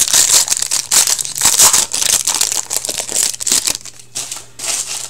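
Foil wrapper of a hockey card pack torn open and crinkled by hand, a dense run of crinkling. It thins to a few scattered rustles about four seconds in as the cards are drawn out.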